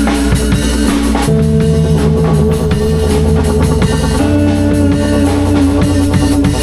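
Live band improvising: a drum kit keeps a steady beat under sustained guitar and bass notes, with the chord changing about a second in and again past the middle.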